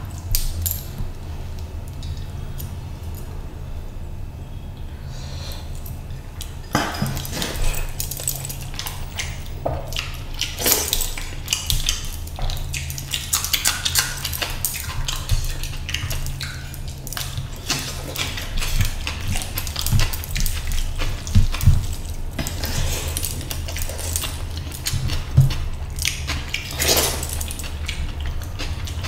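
Close-up eating sounds: a hand mixing rice and fish curry on a plate, wet chewing and lip smacks, with occasional clinks against the plate, over a steady low hum.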